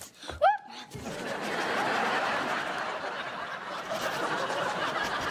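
Sitcom studio audience laughing: a sustained wave of many voices laughing together that swells about a second in, after a brief vocal sound from a performer.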